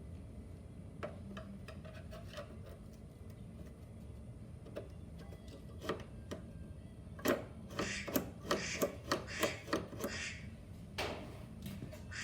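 Small metal parts of a truck sleeper door latch clicking and tapping as they are handled and fitted: a few scattered clicks, then a quick run of sharper clicks about seven seconds in, over a low steady hum.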